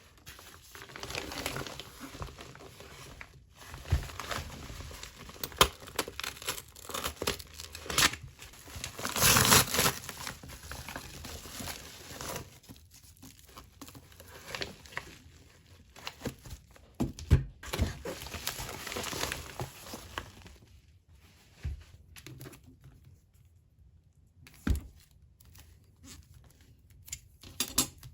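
Packaging crinkling and tearing as a parcel is unwrapped by hand, in uneven rustling spells with sharp taps and knocks in between; the handling grows quieter over the last few seconds.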